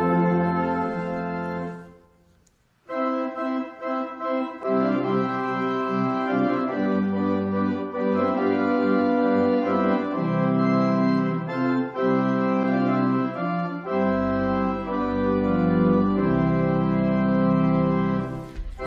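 Organ music. A held chord fades out, and after a short silence the organ begins playing slow, sustained chords; deep pedal bass notes join about fourteen seconds in.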